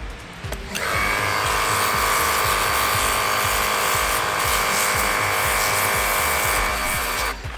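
Portable pressure washer running: a steady motor whine with a spray hiss, starting abruptly about a second in and cutting off near the end.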